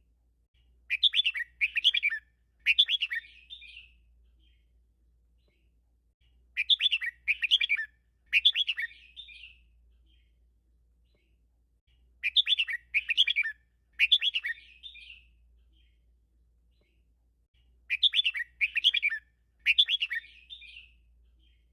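Red-whiskered bulbul singing, one song phrase repeated four times about every six seconds. Each phrase is two quick warbled notes followed by a longer third one.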